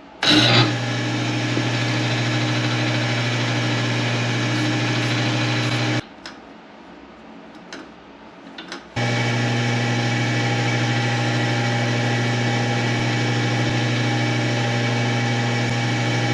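Wood lathe running with a steady motor hum. It is switched off about six seconds in and started again about three seconds later.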